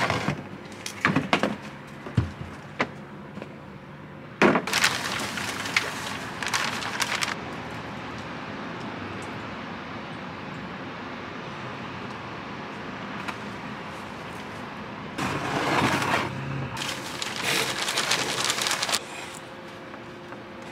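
Repotting noises: a crinkling bag of potting mix and soil being handled into a plastic bucket. There are a few sharp clicks and knocks at first, then two longer stretches of crackling and rustling, one a few seconds in and one near the end, over a steady background hiss.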